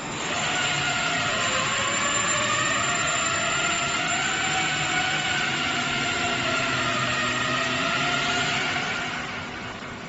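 CNC router running a job: a motor whine with several tones that drift up and down in pitch as it works, easing off near the end.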